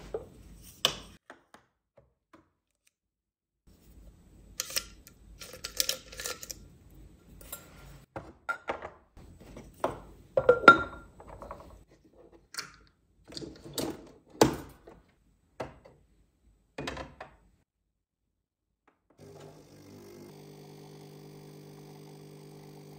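Household objects being handled and set down: a series of knocks, clinks and clatters, the loudest around the middle. After a short pause, a faint steady hum starts near the end.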